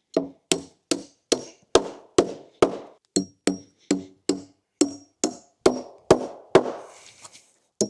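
Hammer driving nails into wood: a steady run of sharp strikes, about two and a half a second, many with a short high ring. The strikes break off briefly near the end.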